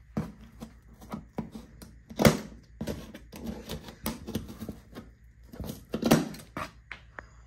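Cardboard box and packaging being opened and handled: irregular clicks, scrapes and crinkles, with two louder thumps about two seconds in and again about six seconds in.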